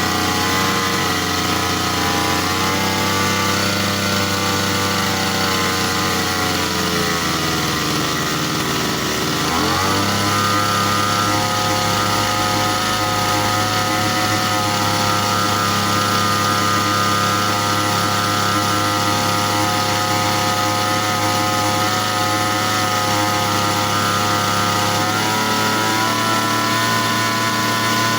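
Small grass-cutter (brush cutter) engine running continuously during a post-repair test run, held running for five minutes to check that it no longer stalls when warm. Its speed sags slowly for the first nine seconds or so, picks up sharply about ten seconds in and holds steady, then rises a little again near the end.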